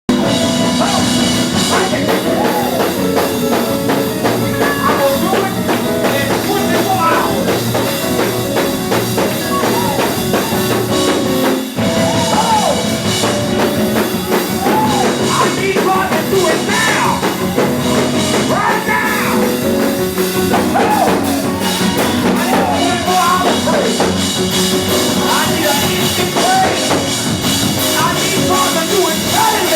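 Loud live gospel music of a church praise break: a drum kit driving a fast beat under held instrument chords, with voices singing and shouting over it. The music drops out for an instant about twelve seconds in.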